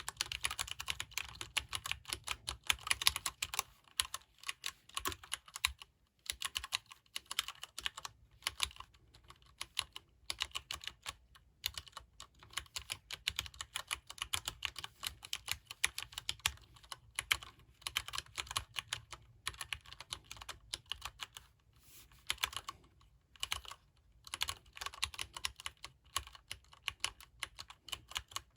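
Fast, continuous typing on a Leopold FC750R PD mechanical keyboard with Cherry MX Brown switches: the keys give a soft, non-clicky clack, broken by a few short pauses.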